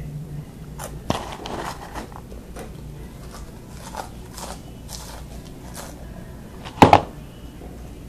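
Crunchy hot snacks (Flamin' Hot Crunchy Cheetos and Tabasco Cheez-Its) being crunched and chewed up close, with scattered short crunches and rustles. A louder short burst comes about seven seconds in.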